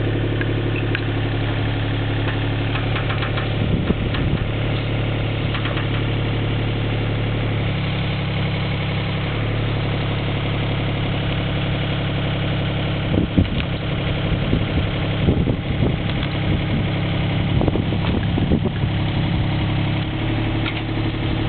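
Mini excavator's diesel engine idling steadily, its pitch shifting slightly about a third of the way in and again near the end. A few sharp clanks come in the second half.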